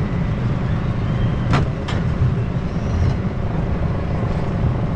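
Rocky Mountain Construction wooden roller coaster train running along its track, a loud steady rumble mixed with wind rush, with two brief sharp sounds about one and a half and two seconds in.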